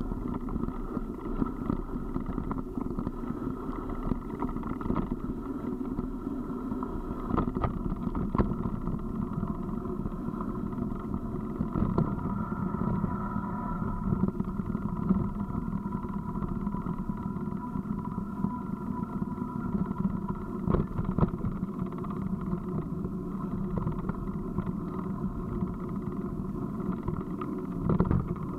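Steady rumble and rattle of a vehicle rolling down a gravel road, with sharp knocks from bumps now and then.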